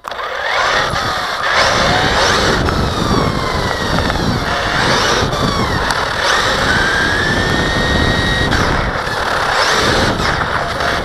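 Electric RC buggy (Team Associated RC8.2e) driving over rough asphalt, heard from a camera mounted on the car. A loud rumble and rattle of tyres and chassis runs throughout, with a high motor whine that rises and falls as the throttle changes.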